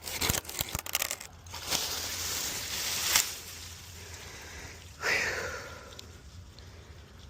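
Wood crackling and crunching as it breaks, with a swell of noise peaking about three seconds in and another sudden crash about five seconds in that fades away.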